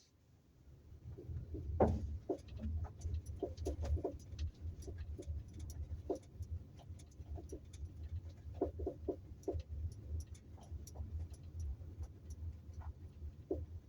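Kia Optima driving on a dirt road, with a steady low road rumble and irregular short knocks from the rear suspension, often several in quick succession, as the wheels go over bumps. The cause of the rear knocking is unknown to the owner.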